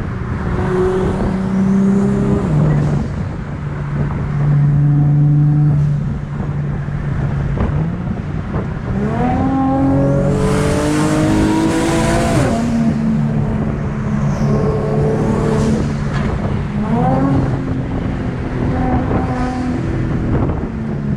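Car engine accelerating hard, its pitch climbing and dropping back at each gear change about nine seconds in and again near seventeen seconds, with a steady drone between. A rushing noise rises during the hardest pull.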